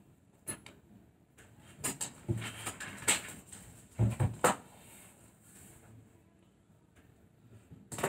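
Basketball shoes being handled and put down on a tabletop: scattered knocks and rustles, with the loudest thumps about four seconds in as the shoes are set on the table.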